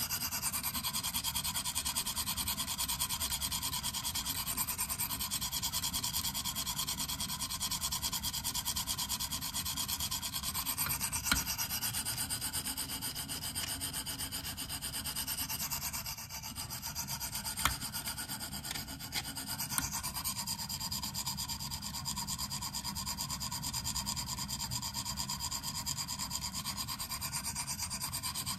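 Rapid back-and-forth strokes of a diamond plate on a KME guided sharpener across a steel knife blade: a continuous scratchy rasping, with a few sharp clicks partway through.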